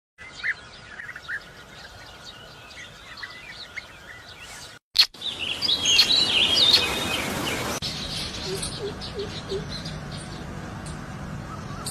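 Wild birds chirping and calling in short, quick notes, in a series of clips that cut abruptly about five seconds in and again near eight seconds. In the middle stretch the calls are louder and sit over an even rushing noise; after the second cut, a few short low notes repeat.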